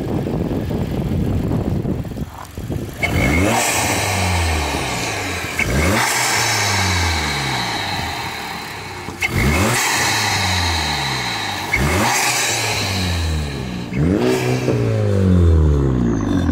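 Turbocharged 1.8 TSI four-cylinder engine of a straight-piped, tuned Volkswagen Jetta, heard at the open engine bay with its cone-filter cold air intake. It rumbles at idle, then is revved five times, each rev rising quickly and falling back.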